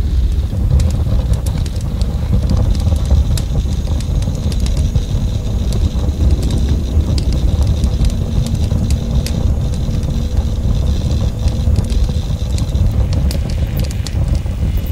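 Fire burning close up: a steady low roar with scattered sharp crackles throughout.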